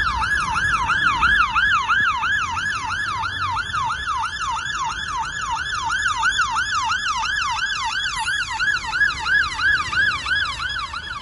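Fire engine's two-tone emergency siren on a fast yelp: a rapid rising-and-falling wail repeating about three to four times a second, loud and steady as the appliance comes close. Faint traffic rumble underneath.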